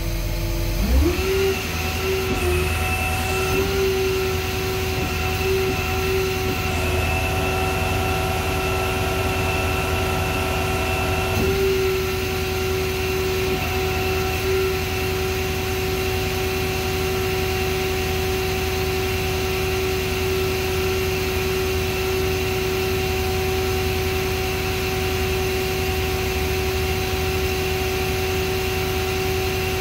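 Electric overhead hoist motor spinning up and then running steadily as it slowly lifts a cell out of an industrial battery. It is a steady, pitched hum that rises briefly as it starts about a second in and changes a little around eleven seconds in.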